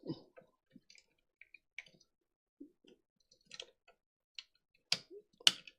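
Plastic parts of a transforming robot action figure being folded and handled: scattered faint clicks and ticks, then two sharper clicks about half a second apart near the end.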